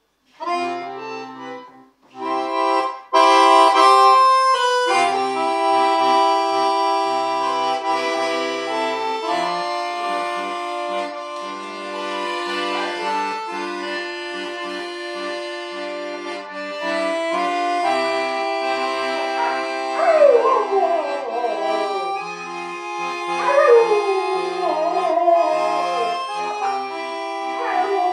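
Piano accordion playing chords, a few short ones at first and then long held ones. From about two-thirds of the way through, a black Labrador howls along in several long sliding wails over the music.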